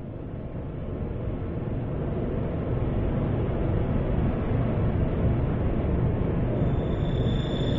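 Experimental noise improvisation: a low, rough wash of noise that grows louder over the first few seconds and then holds steady. Near the end a high, steady tone with overtones comes in above it.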